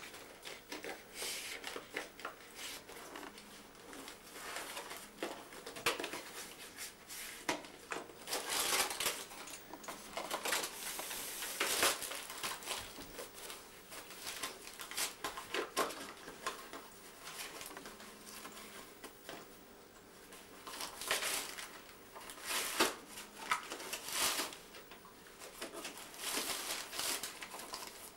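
Wrapping paper and tissue paper crinkling, rustling and tearing in irregular bursts as a Doberman noses and tugs open a Christmas present. There are louder flurries twice, about a third of the way through and again past two thirds.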